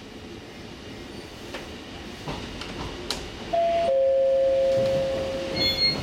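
Electric train pulling away from a station, its running noise building with a few clunks from the wheels. Partway through, a loud two-note horn sounds, steady and level for about two seconds. A short high chime comes near the end.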